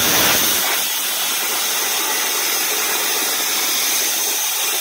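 Compressed air from an air compressor's nozzle hissing steadily and loudly into a hole in the tin foil covering a cup.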